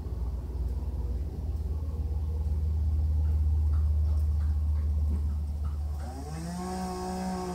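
Low rumble of semi trucks passing on a highway, swelling to its loudest about three to four seconds in. About six seconds in, a pitched motor tone rises and then holds steady.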